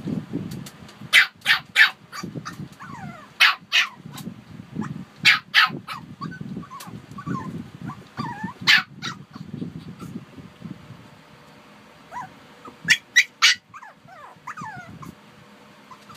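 Shih Tzus barking in quick runs of two or three sharp barks, with whining between the runs.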